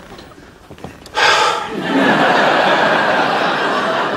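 Studio audience laughing. The laughter breaks out suddenly about a second in and carries on steadily.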